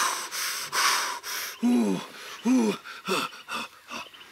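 A man blowing out three hard, puffing breaths, then letting out a few short strained grunts, from the effort of heaving a dead deer up by its hind legs.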